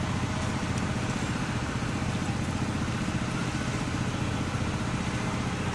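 A small engine idling steadily, a low, rapid, even throb that holds the same speed throughout.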